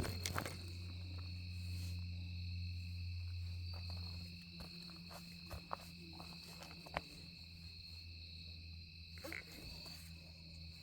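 Night insect chorus, crickets or katydids, giving a steady high-pitched trill. A low hum is louder than the insects at first and stops about four seconds in, and a few faint ticks follow.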